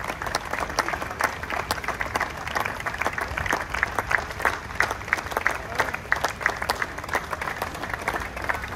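A crowd applauding: many people's hands clapping together without a break.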